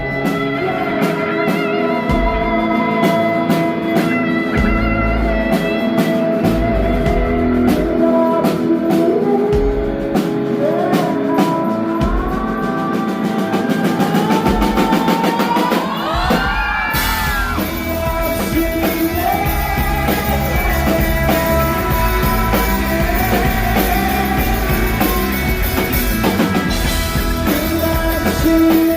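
Live rock band playing: electric guitar holds sustained notes over intermittent bass pulses, then a rising bend leads into the full band with drums and cymbals about 17 seconds in.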